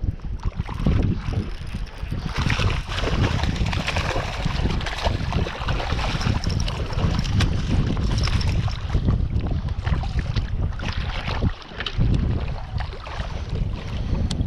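Gusty wind buffeting the microphone, a heavy low rumble that swells and eases.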